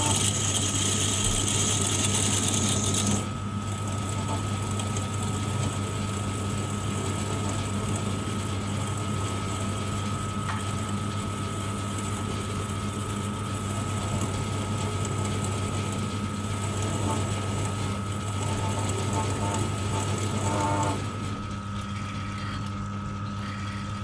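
Emco FB2 milling machine running and drilling into the end of a high-tensile bolt, a steady motor hum with a constant high gear whine. A brighter, high-pitched cutting squeal sounds for the first three seconds, and the sound drops briefly a few seconds before the end.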